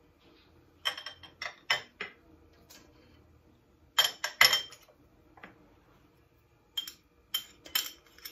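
Sharp clinks and taps against a stainless steel mixing bowl as spices are tipped into it, in small clusters about a second in, around four seconds in, and again near the end.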